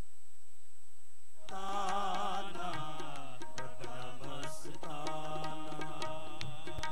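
Sikh kirtan music on harmoniums with tabla, starting about a second and a half in after a brief hush. It is a sustained melodic passage with steady drum strokes, heard between sung lines.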